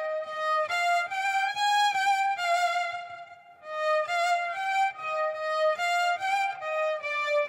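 Background music: a melody of held violin notes, with a short break about three seconds in.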